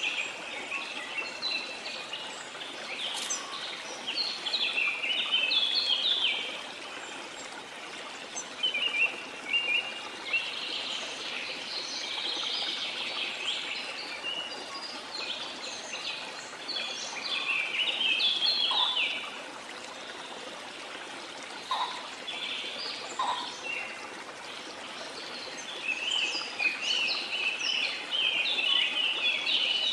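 Songbirds singing in quick, twittering phrases that come in bouts of a few seconds with short pauses, over the steady rush of running water.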